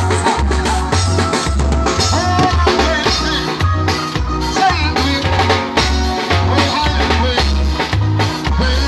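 Dead-yard band music played loud through a sound-system speaker box: a heavy, repeating bassline with drums and percussion over it.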